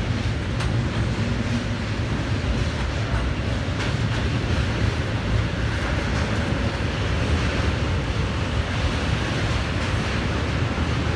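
Bombardier Traxx class 186 electric locomotive running, a steady loud noise with a strong low hum and a few faint clicks.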